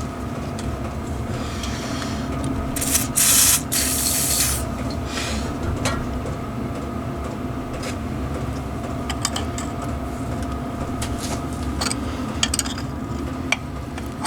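Milling machine running with a steady motor hum. About three seconds in comes a loud hiss lasting under two seconds, and scattered short clicks and taps follow in the second half.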